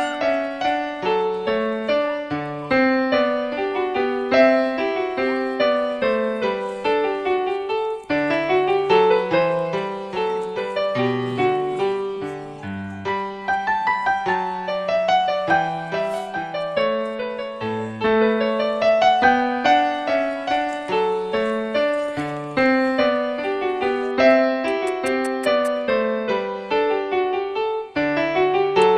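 Background piano music: a quick melody of short notes over a lower line.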